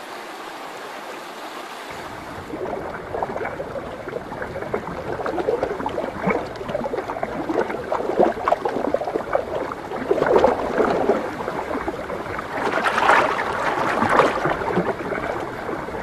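Shallow river water running, then irregular splashing from about two seconds in, with the loudest bursts near the end: spawning sockeye salmon thrashing in the shallows as males jostle for a female.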